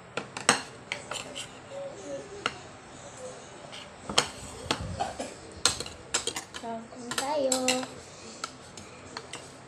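Metal spoons clinking and scraping against ceramic plates as rice is scooped and served, a scattered run of sharp clinks. A girl's voice comes in briefly about seven seconds in.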